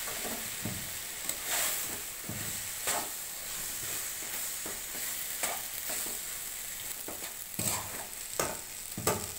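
Boiled seeded raw banana (bichhe kola) frying in oil in a pan with a steady sizzle, stirred and scraped at uneven moments every second or so.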